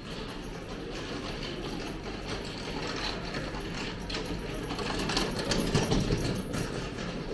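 A metal-framed hand cart rattling as its wheels roll over the paved floor, growing louder as it is pushed past and loudest about six seconds in.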